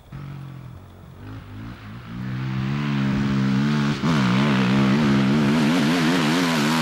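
Suzuki LTR450 sport quad's single-cylinder four-stroke engine accelerating hard from a near standstill, its pitch climbing over the first two seconds. There is a brief break for a gear change about four seconds in, then the pitch wavers up and down as the quad comes closer and gets louder.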